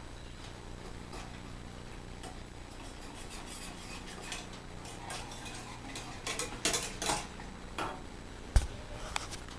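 Metal whisk stirring pudding in a pot, scraping and clinking in uneven strokes that grow busier in the second half, with one sharp knock about a second before the end. A steady low hum runs underneath.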